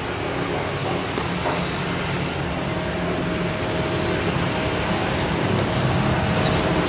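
Electric motor of an automatic cast-aluminium gate running as the gate moves. It is a steady mechanical hum with a thin whine that joins in a little after a third of the way through, growing slowly louder.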